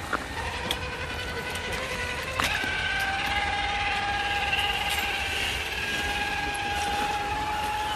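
Electric motor and gearbox of a scale RC crawler truck whining as it climbs over leaves and roots, the whine shifting pitch in steps with the throttle, with scattered faint ticks.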